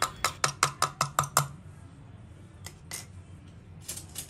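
Metal spoon tapping and scraping against the clear plastic bowl of an electric chopper while scooping out chopped onion. It gives a quick run of about eight light clicks in the first second and a half, then two single taps.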